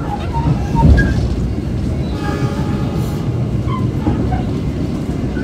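Argo Cheribon passenger train running at speed, heard from inside the economy carriage: a steady rolling rumble of wheels on rail, with a louder knock about a second in.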